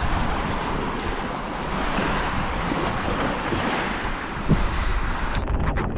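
Wind buffeting the microphone, with the rush of surf; the sound turns suddenly muffled near the end.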